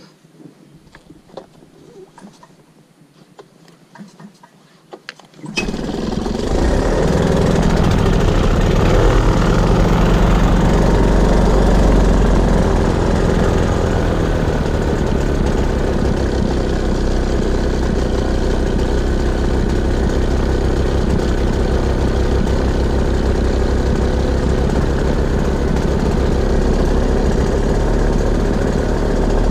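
A paramotor engine running loud and steady. It comes in suddenly about five seconds in, after a few faint handling clicks.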